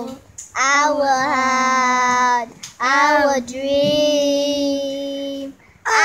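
A child singing two long held notes, each at a steady pitch: the first about two seconds long, the second about three seconds long, with a short break between them.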